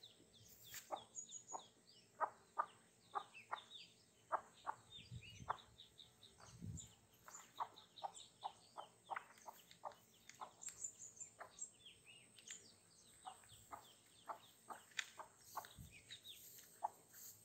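A broody hen clucking softly and repeatedly, two or three short clucks a second, calling to her newly hatched ducklings, with their thin high peeps over the top.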